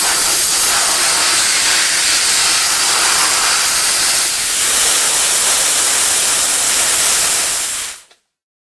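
Steam jetting from a steamer with a loud, steady hiss, played onto old wood veneer to soften the glue and lift it off gently. The hiss cuts off abruptly about eight seconds in.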